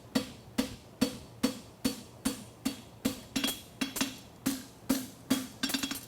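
Farrier's hammer striking a steel horseshoe on the anvil in steady blows, a little over two a second, each with a short metallic ring, and a quick flurry of lighter taps near the end.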